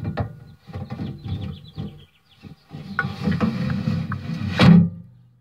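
Sheet-metal mailbox door being handled and swung open, heard from inside the box: irregular clanks and rattles, with one sharp loud clank a little before the end.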